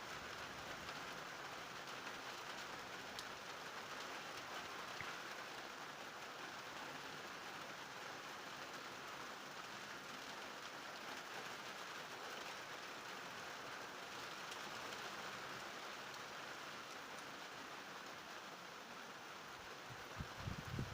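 Rain falling steadily during a thunderstorm, an even hiss. A brief low rumble near the end.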